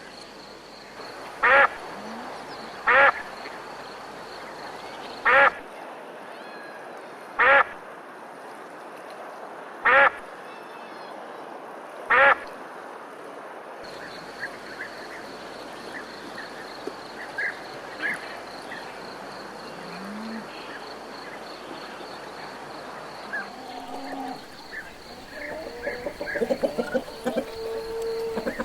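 Animal calls: six loud, short calls about two seconds apart, then, after a change of background, scattered faint chirps and a flurry of calls near the end.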